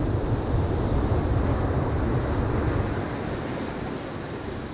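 Ocean surf breaking on a sandy beach: a loud, rushing wave crash that eases into a softer wash over the last second or so, with wind rumbling on the microphone.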